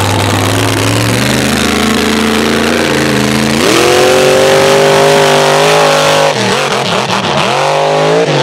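King Sling mega mud truck's engine revving hard during a freestyle run. The pitch climbs in two steps to a high, held rev, then rises and falls in quick blips near the end.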